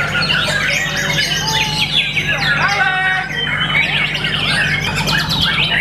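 White-rumped shama singing a rapid, varied song of whistles, gliding notes and chirps, with a fast rattling trill about three seconds in. A steady low hum runs underneath.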